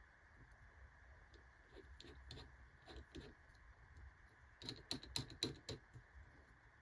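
Faint, light clicks and taps, with a quick run of sharper clicks about five seconds in.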